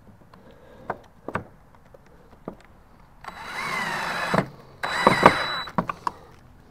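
Cordless drill driving a pocket-hole screw into the wooden frame in two short runs of about a second each, the motor's whine bending in pitch as the screw bites. A few light knocks of handling come before and after.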